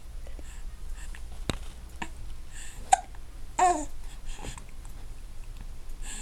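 Newborn baby hiccuping: several short, sharp hiccups under a second apart, with a brief voiced squeak just after the loudest one.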